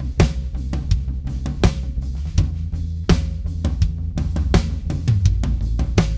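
A recorded acoustic drum kit playing a steady groove of kick, snare, toms and cymbals, mixed through a live digital console. A 4 kHz EQ boost is being dialed in to bring out the stick attack.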